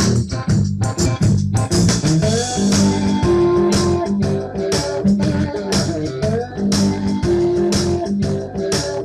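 Upbeat intro music with a steady beat, a pitched melody over sustained chords and regular percussion hits.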